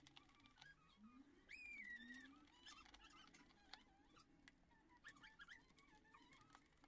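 Near silence: faint bird calls in the background and a few light clicks as a screwdriver works screws into the amplifier's back panel.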